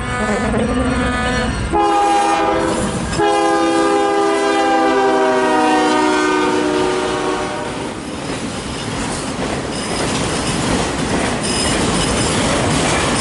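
CN train's locomotive air horn sounding a short blast, then a long blast that sags slightly in pitch. The horn gives way about 8 seconds in to the steady rumble and clickety-clack of the train's wheels passing.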